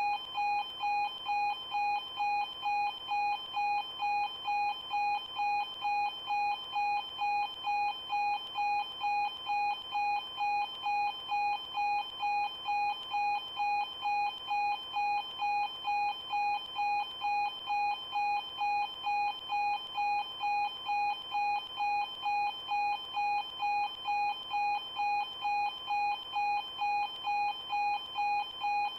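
Level-crossing warning alarm ringing: an electronic bell tone pulsing evenly about twice a second.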